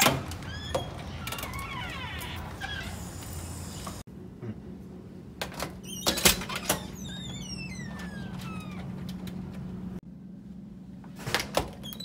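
Panic-bar (push-bar) door latches clacking as the bars are pressed in and the doors released: sharp metallic clunks in a few clusters, over a steady low hum.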